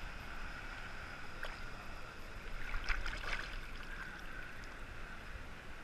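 Ocean surf water sloshing close around a camera at the waterline, with a brief burst of splashing about three seconds in.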